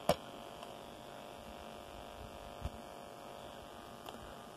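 Steady electrical buzzing tied to the FrSky R9M 900 MHz transmitter module running at 500 mW RF power on a Taranis radio. A single sharp click comes just after the start.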